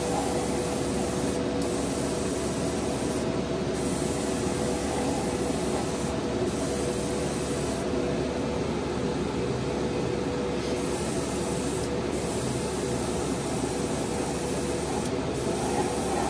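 Gravity-feed airbrush spraying paint: a steady hiss of air over a steady low hum, the hiss easing off briefly several times and for a few seconds midway as the trigger is let up.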